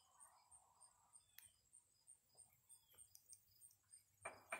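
Near silence with faint, evenly repeated high chirps of insects, about three a second. Near the end come two short, louder noises.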